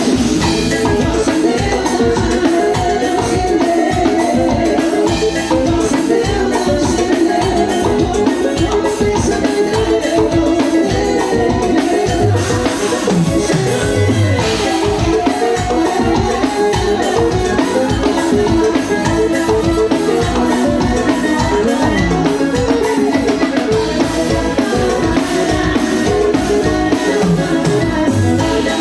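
Drum kit and percussion playing continuously with a band, with pitched melody lines over the beat.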